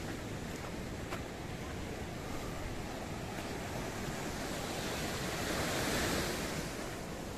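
Sea surf washing and breaking over the rocks of the shoreline, a steady rush that swells about six seconds in as a bigger wave breaks, with wind rumbling on the microphone.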